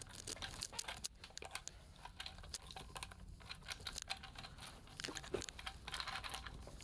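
Faint scattered clicks and light rustling of tools and small parts being handled and moved about on a workbench, over a low steady hum.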